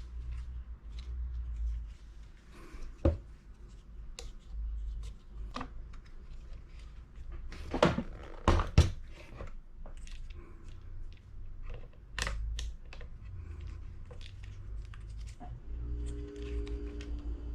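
Handling noises: irregular clicks, taps and knocks of objects being moved and set down, with a few louder knocks about eight to nine seconds in and again around twelve seconds.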